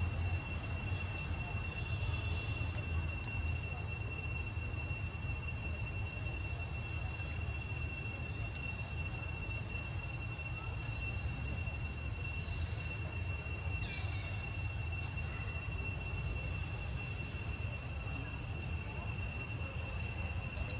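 A steady, unbroken high-pitched insect drone over a constant low rumble.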